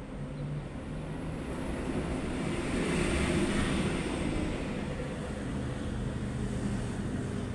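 A vehicle passing by, its noise swelling to a peak about three seconds in and then fading.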